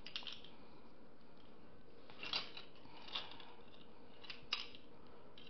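Faint, scattered clicks and scrapes of plastic measuring spoons being handled, then a spoon dipping into a small glass jar of dry yeast.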